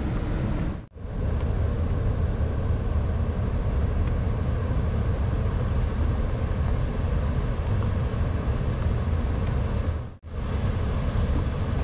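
Steady rushing of fast-flowing river water below a waterfall, heavy in the low rumble. It drops out briefly about a second in and again near the end.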